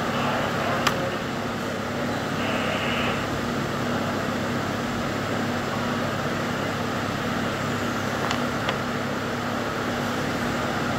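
Steady mechanical hum of workshop machinery with a low droning tone, and a few light clicks, about a second in and twice near the end, from hands working wires and small fittings on the panel.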